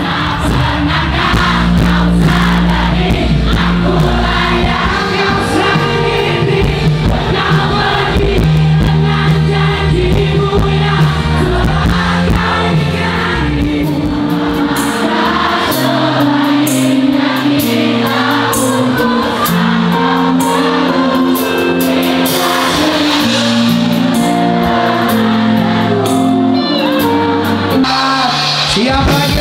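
Live pop music with a band: a male singer singing into a microphone while a large crowd sings along.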